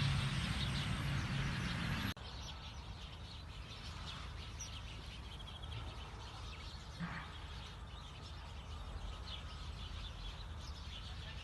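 Outdoor rural ambience: faint birds chirping over a steady low background noise. The louder low noise at the start drops off abruptly about two seconds in.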